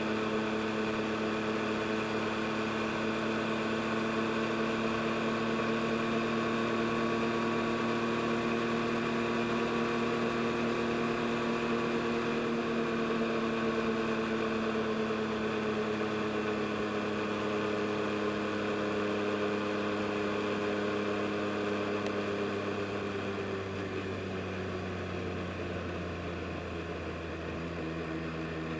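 2022 Yamaha MT-09 SP's three-cylinder engine running at a steady cruise. From about halfway its note slowly falls as the revs ease off, until near the end.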